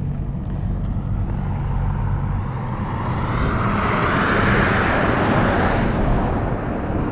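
A vehicle driving past on a snowy, slushy road: its tyre and engine noise swells to a peak about halfway through and then fades, over a steady low engine hum.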